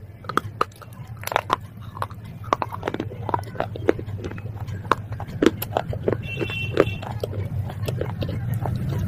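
Close-up crunching of baked clay pot and slate pencil pieces being bitten and chewed: a rapid run of sharp, crisp cracks, thicker in the first half and thinning out after.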